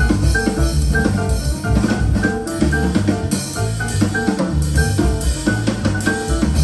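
Instrumental jazz with a busy drum kit and a strong bass line, played back through KEF LS50 Meta bookshelf speakers.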